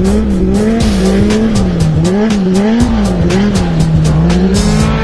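Formula race car engine revving up and down about twice a second as the throttle is worked to keep the wheels spinning on snow.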